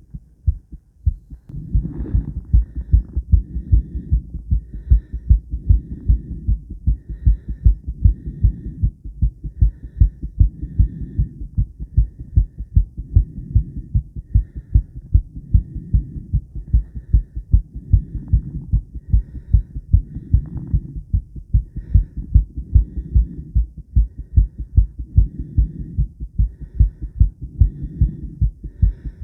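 A woman's heartbeat recorded close against the chest: a fast, steady train of low thudding beats. A softer low swell of noise comes and goes every couple of seconds.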